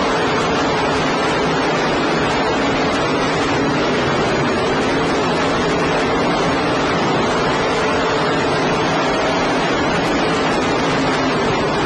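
Sprint cars racing on a dirt oval: a loud, steady roar of several engines, recorded poorly so that it comes through as a distorted wash of noise with faint engine tones beneath.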